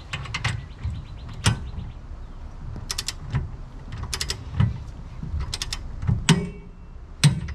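Click-type torque wrench with a 19 mm 12-point socket being worked on a square-head set screw, torquing it to 100 foot-pounds. Short runs of three or four quick ratchet clicks come on each return stroke, repeated several times, with a few single sharper clicks between.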